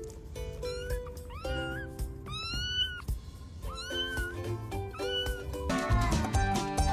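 A domestic cat meowing repeatedly, about five drawn-out meows that rise and fall in pitch, over background music that switches to a louder, busier track near the end.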